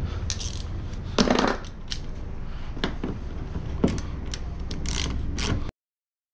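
Small metal hand tools and screws clinking: several light, separate metallic clicks, with one brief ringing clink about a second in, while a 10 mm bumper screw is worked off with a socket. The sound cuts off suddenly near the end.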